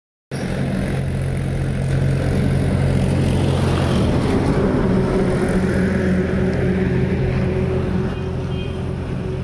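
Tractor engine running as the tractor drives past close to the ground, a steady low drone that is loudest through the middle and eases slightly near the end.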